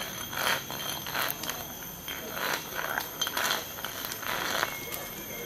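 Glass light bulb being scraped against concrete paving by a macaque: a series of short gritty rasping scrapes, roughly one or two a second.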